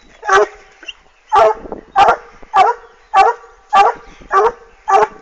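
A dog barking in a steady rhythm: eight short, loud barks, about one every 0.6 seconds, after a longer pause near the start.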